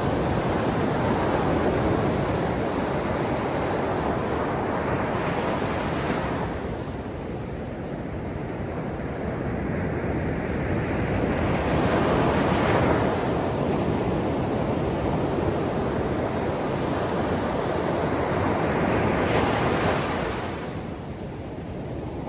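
Soft ocean waves breaking and washing ashore, swelling and easing in slow surges about every six or seven seconds.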